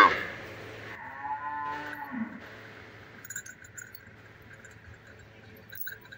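A young cow calf mooing. A loud moo cuts off right at the start, and a second, softer moo comes about a second in and lasts about a second. Faint scattered clinks from the bells on its neck chain follow.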